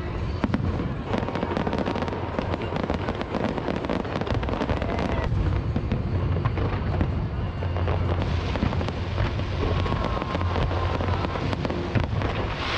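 Aerial fireworks display going off without pause: dense crackling pops over a continuous low rumble of bursts.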